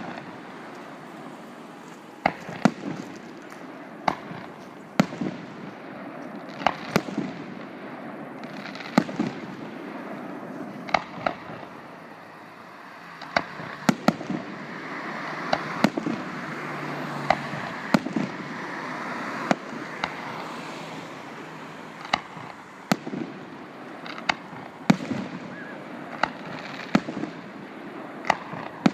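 Aerial fireworks display: sharp bangs of bursting shells at irregular intervals, roughly one every second or two, over continuous crackling. The crackle grows denser and hissier in the middle.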